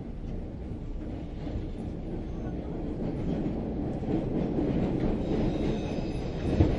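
Train running along the track, heard from inside the car as a steady low rumble that grows louder partway through, with a single sharp knock near the end.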